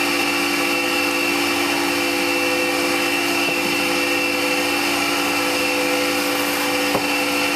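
Steady mechanical hum of running machinery: several held tones over an even whirring noise, unchanging, with one light knock near the end.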